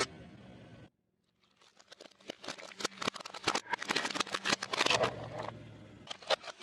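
Crunchy food being crushed under a car tyre: a dense run of crackles and crunches that starts after a short silence about a second in and is loudest near the end. Before the silence, a low steady hum of the car.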